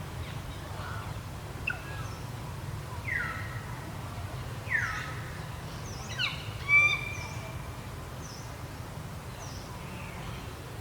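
A few short, high animal calls, each sliding down in pitch, the loudest near the middle, over a steady low background rumble.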